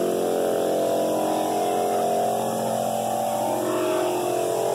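Drum floor sander running steadily while sanding a hardwood floor, a constant pitched motor hum. Its own dust blower is not working, so a shop vacuum pulls the dust through the hose via a cyclone separator.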